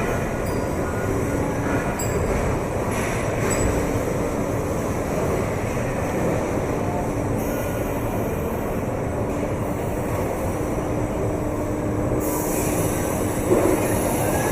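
Steady mechanical rumble of a car assembly plant floor, with faint steady machine tones over it.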